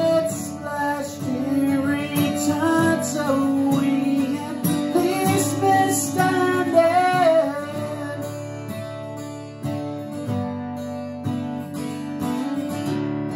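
Steel-string acoustic guitar strummed in open D tuning, with a man singing over roughly the first half. After that the guitar plays on alone.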